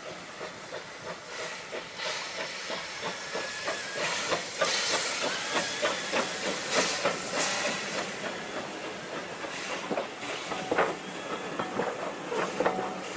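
Heritage steam train passing close by as it pulls out of a station: the locomotive's steam hissing, then the carriages rolling past with their wheels clicking and knocking on the rails. It grows louder about two seconds in.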